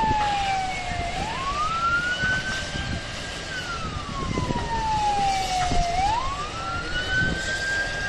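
Emergency vehicle siren wailing in a slow rise and fall: the pitch climbs quickly, holds high, then slides slowly down, about one cycle every five seconds, over a constant low rumbling background noise.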